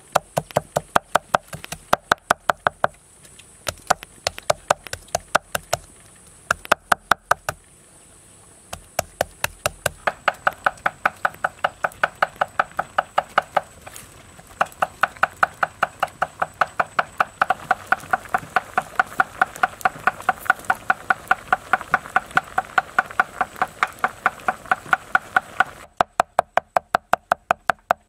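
Knife mincing garlic and red chili on a thick wooden chopping block: quick, even chops, several a second, with a few short pauses in the first eight seconds and then a long unbroken run.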